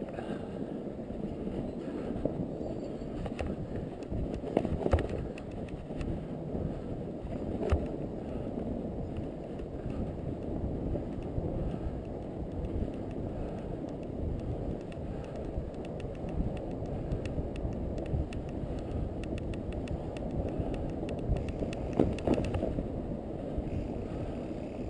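Fat bike riding over snow: a steady low rumble of the wide tyres and wind on the microphone, with scattered sharp clicks and a run of rapid ticking in the second half.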